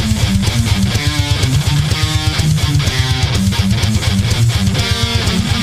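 Thrash metal recording: fast distorted electric guitar riffing over programmed drums.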